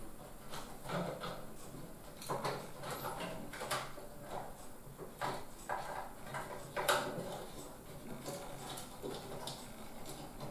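Computer cables, a flat IDE ribbon cable among them, being pushed and tucked into place inside a steel PC case: irregular rustles, light scrapes and plastic clicks against the chassis, with one sharper click about two-thirds of the way through.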